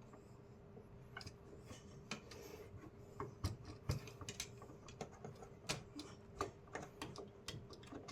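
Faint, irregular clicks and taps of a duplex light switch and its stiff cloth-covered wires being handled and pushed back into the wall box, with a few sharper knocks a few seconds in.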